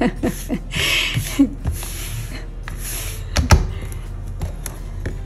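Things being cleared off a sewing work table: rustling and several light knocks as items are picked up and set down, with one sharper knock about three and a half seconds in.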